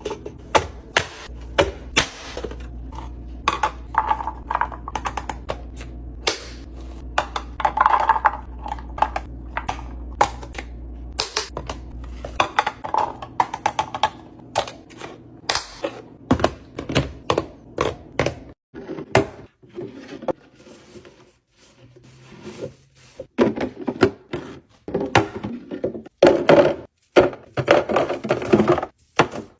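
Restocking and organising sounds: a run of irregular clicks, taps and knocks as items and containers are handled and set down, some with a short ring. A steady low hum runs underneath until it cuts off suddenly about twelve seconds in.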